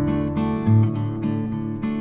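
Background music: acoustic guitar strumming and plucking in a steady rhythm.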